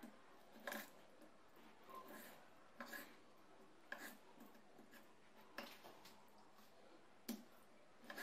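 Kitchen knife cutting raw chicken breast on a bamboo cutting board: soft, short knife strokes onto the board, about one a second, seven or so in all.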